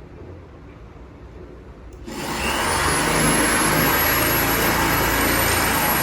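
Electric drill starting about two seconds in, its motor whine rising quickly and then holding steady as the bit drills into a terracotta plate.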